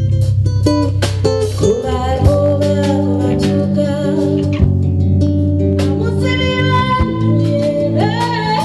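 A woman singing into a microphone with live instrumental accompaniment and a hand drum beating a steady rhythm.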